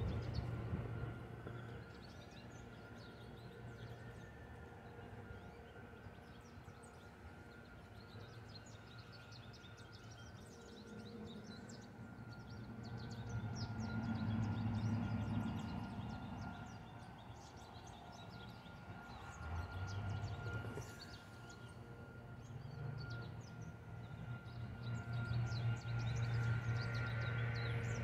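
Low rumble of distant road traffic, swelling and fading three times as vehicles pass, under a steady faint high whine and scattered faint high chirps.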